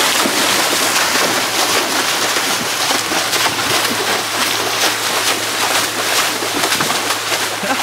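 Heavy water splashing and sloshing as people thrash about in water filling a car's cabin, spraying out through the open window. A steady low hum runs underneath.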